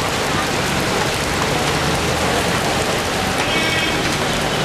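Steady hiss of rain falling on a flooded street, with water splashing. A motor scooter's engine runs low under it in the first two seconds, and a brief high-pitched sound comes about three and a half seconds in.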